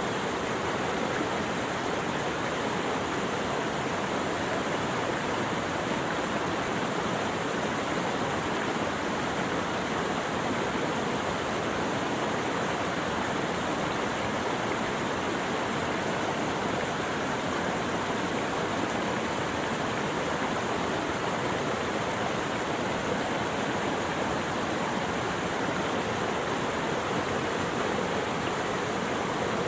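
Steady, even rushing of flowing water, unchanging throughout.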